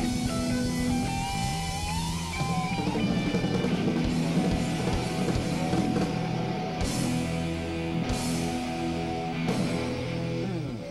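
Live rock band playing: electric guitar with a bending lead line over held chords and drums. Then come three big drum-and-cymbal crash hits, about a second and a half apart, as a closing flourish to a song.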